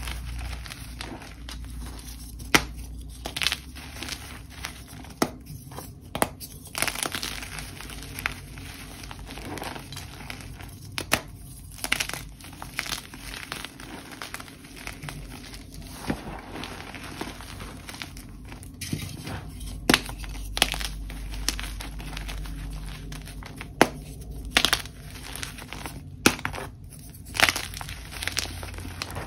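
Dyed gym chalk crushed and crumbled in bare hands: a steady dry crumbling with frequent, irregular sharp crunches as chunks break apart.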